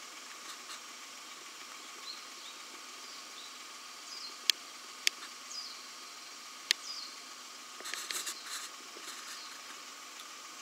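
Quiet forest ambience with a steady hiss and a few short, high falling chirps. Three sharp clicks come in the middle, and a brief rustle follows about 8 seconds in.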